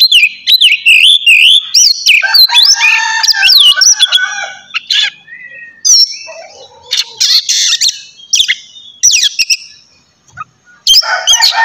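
Oriental magpie-robin singing loudly: a fast, varied song of clear rising and falling whistles mixed with rapid rattling and chattering phrases. It breaks off briefly near the end, then starts again.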